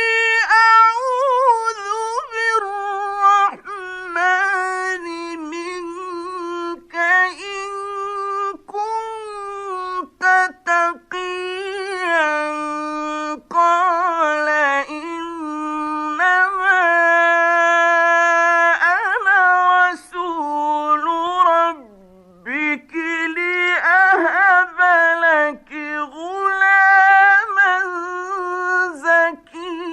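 Quranic recitation by a single male reciter in a high, melodic chanting style, holding long notes with wavering ornaments and pausing briefly for breath.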